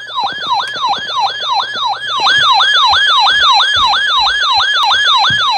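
Electronic siren alert tone heralding a tornado warning broadcast: a rapid yelp that sweeps down in pitch over and over, about three times a second, getting louder about two seconds in.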